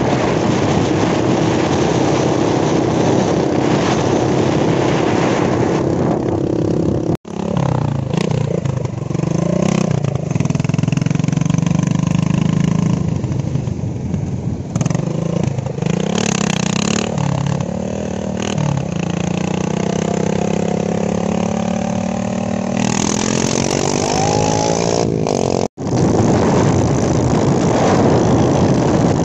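Yamaha dirt bike engine running on the road, with heavy wind rush on the microphone at the start and end. In the middle its engine note is heard clearly, climbing in pitch near the end as the bike accelerates.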